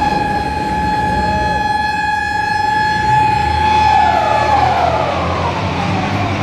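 Lifeboat hull sliding down the boathouse slipway on a launch, giving a loud steady high squeal with overtones. About four seconds in, the squeal glides downward in pitch, over a broad rumble.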